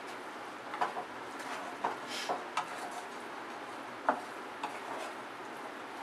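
Slotted spatula stirring syrup-coated fried boondi in a non-stick kadhai, with a handful of short scrapes and knocks of the spatula against the pan. The loudest knock comes about four seconds in.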